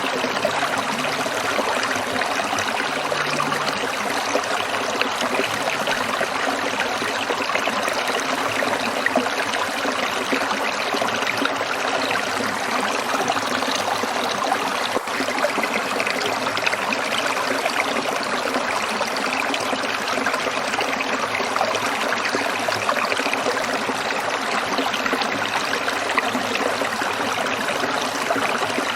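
Water trickling and splashing over rocks in a small stream, a steady, even rush.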